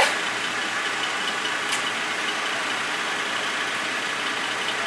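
Car idling at a drive-thru window, a steady even hum, with a sharp click at the very start and a fainter tick a couple of seconds in.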